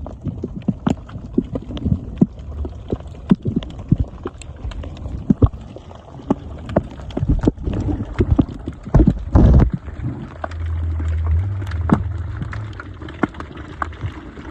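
Water noise picked up by a submerged camera: a muffled, rumbling wash with many irregular knocks and clicks, a heavy burst about nine seconds in, and a low drone from about ten seconds in.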